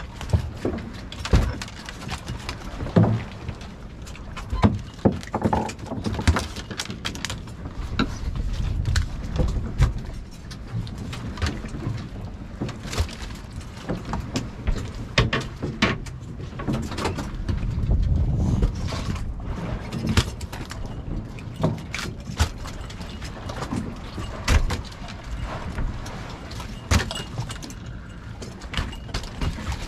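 Freshly caught black rockfish flopping and slapping on a boat's aluminium deck: many irregular knocks and thumps over a low steady rumble.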